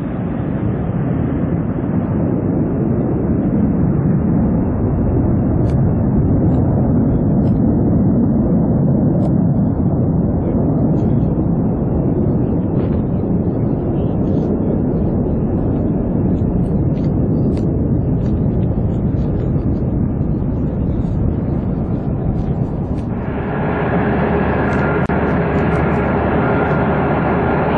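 A Boeing E-3 Sentry's four TF33 turbofans at climb power, a heavy jet rumble that grows duller and fainter as the aircraft climbs away. Near the end it cuts abruptly to a Lockheed C-130 Hercules' four turboprops running on the runway, a steadier sound carrying a whine of distinct propeller and turbine tones.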